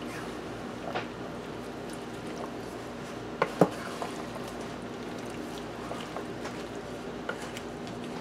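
Wooden spoon stirring chopped squash and zucchini through saucy vegetables in a metal roasting pan: soft wet squishing with a few sharp knocks of the spoon against the pan, the loudest a pair about three and a half seconds in, over a steady low hum.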